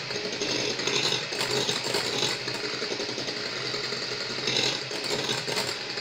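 Electric hand mixer running steadily, its beaters whipping eggs in a bowl while sugar is added gradually for a génoise sponge batter.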